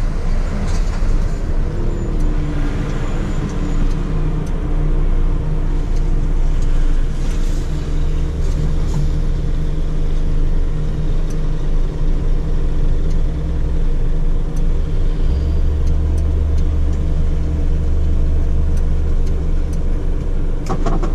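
Truck's diesel engine running at low speed, heard from inside the cab as the truck moves slowly through a turn. It is a steady low drone that swells deeper from about seven seconds in and again past the middle.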